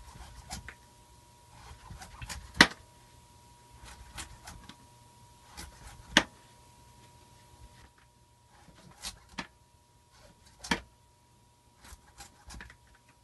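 Kitchen knife paring the rind off a pie pumpkin on a plastic cutting board: scattered scrapes and sharp knocks of the blade, the loudest about two and a half and six seconds in.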